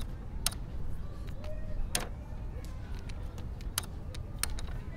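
Chess pieces being set down and chess clock buttons being pressed in a fast game: a few sharp clicks and taps a second or two apart, over a low steady rumble.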